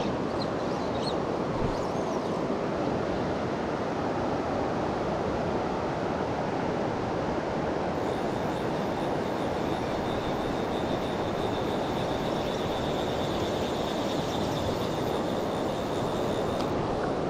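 Steady rush of a fast-flowing river's current, an even, unbroken wash of water noise.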